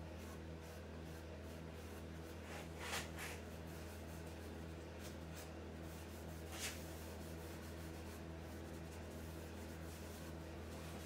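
A rag pad rubbing a thin coat of wipe-on polyurethane onto a wooden chair arm: faint rubbing, with short swishes about three seconds in and again near seven seconds, over a steady low hum.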